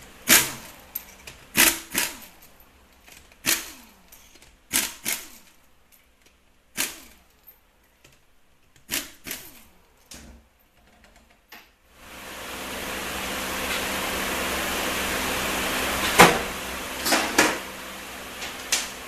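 Sharp metallic clinks and knocks, each ringing briefly, a second or so apart, as steel pump bolts are worked loose with a socket tool and handled against the aluminium case of a Ford 4R75E transmission. About twelve seconds in, a steady rushing noise fades in and runs on under a few more clinks.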